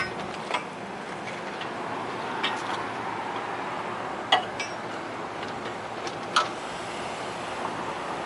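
Steady background hiss with a few scattered light clicks and clinks, the sharpest about four and six seconds in.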